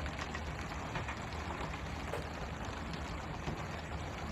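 Steady hiss of the fishing boat's water sprayers raining onto the sea surface, over a low steady rumble of the boat's engine, with a few faint taps.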